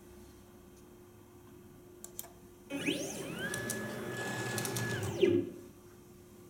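Motorized XY stage of a ColorScout A+ measuring table moving its carriage: about three seconds of motor whine that rises in pitch as it speeds up, holds one steady tone, then falls as it slows, ending in a clunk as the carriage stops. A faint click comes shortly before the move starts.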